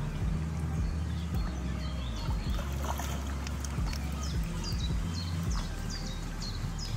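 Water splashing and lapping at the bank as a carp swirls in the shallows, over a steady low rumble. In the second half a small bird calls repeatedly with short, falling high notes.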